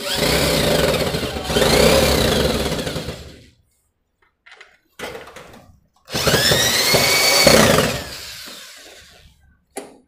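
Cordless drill-driver driving screws into the door closer's mounting bracket on an aluminium door frame. It runs in two spells of about three seconds each, its whine rising and then falling in pitch, with a brief burst in between.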